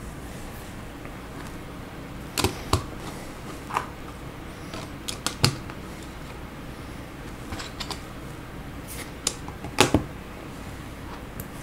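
Plastic LEGO bricks clicking as they are pressed and snapped onto a model car. The clicks are sharp and irregular, coming in small clusters about two and a half, five and ten seconds in.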